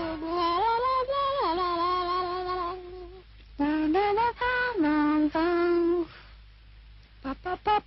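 A woman singing a commercial jingle melody: long held notes that slide up and down in phrases with short pauses, then a run of quick short notes near the end.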